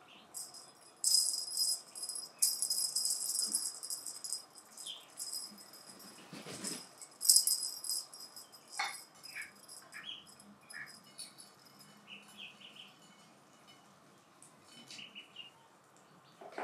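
Hanging bungee cat toy rattling as it bounces and swings on its elastic cord, in a long burst and a shorter one a few seconds later, with a single soft thump between them.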